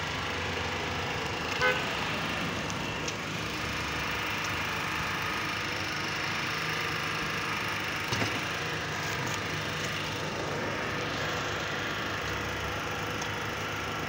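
An engine running steadily with a low, even hum. There is a brief high-pitched tone about two seconds in, and a couple of light knocks around the middle.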